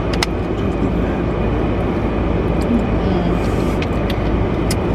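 Steady low rumble inside a car cabin with the car running, with a few light clicks near the start and near the end.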